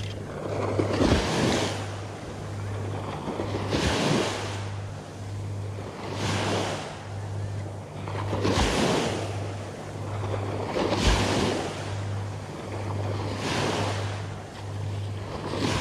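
Small waves breaking and washing up a sandy beach, one wash about every two and a half seconds, over a steady low hum.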